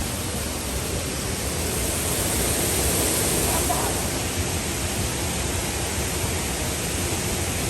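Waterfall: a steady rush of falling water, slightly louder around the middle.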